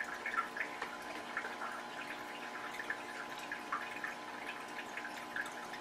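Aquarium filter running: a steady low hum with faint, irregular trickling and dripping of water.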